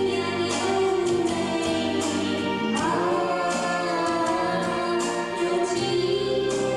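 A pop song sung over instrumental accompaniment, the melody held in long notes with a wavering pitch.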